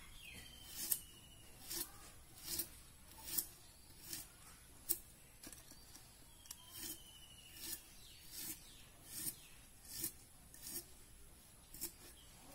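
A knife slicing through spiny gourds in quick crisp cuts, about one every 0.8 seconds, with a short pause just past the middle.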